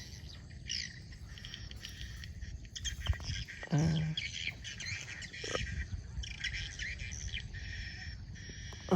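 Small birds chirping, many short high calls and quick up-and-down glides one after another.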